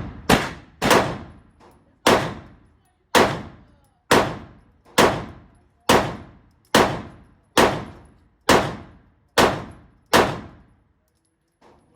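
Airsoft Walther PDP pistol firing a string of about twelve single shots, roughly one a second, each a sharp crack with a ringing tail that dies away.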